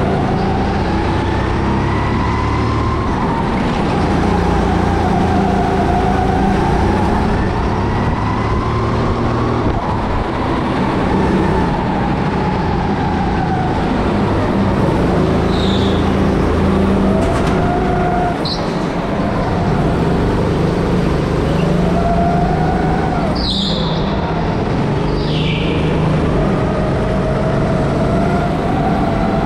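Go-kart heard from the driver's seat, its motor note rising and falling as it speeds up on the straights and slows for the corners. A few short high tyre squeals come in the second half.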